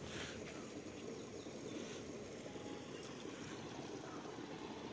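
Steady low rushing background noise with no distinct events.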